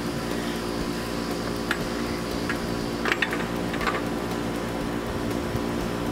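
Steady machine hum, like a fan or air-conditioning unit, with a few light clinks and clicks near the middle as metal parts are handled.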